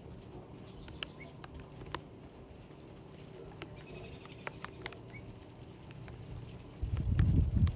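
Scattered light ticks and taps of a chipmunk foraging at a pile of peanuts in their shells, with faint high bird chirps about four seconds in. Near the end a loud low rumble on the microphone takes over.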